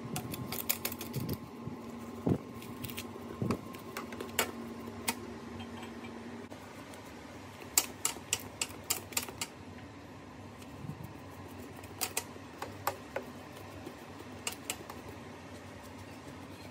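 Light, irregular clicks and taps in small clusters as a silicone pastry brush works glaze over baked buns on parchment paper, over a low steady hum that stops about six and a half seconds in.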